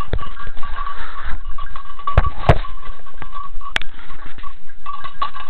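Handling noise on a small camera as a hand grips and covers it: scraping and rubbing with several sharp knocks on the casing, the loudest two in quick succession and one more near the middle, over a steady faint high tone.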